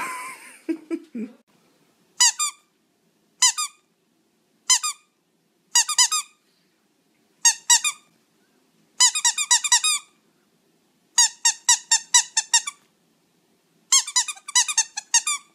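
Squeaky toy being chewed by a pug, squeaking in groups of identical high-pitched squeaks. It begins with single squeaks and moves to quick runs of about eight to ten squeaks a second in the second half.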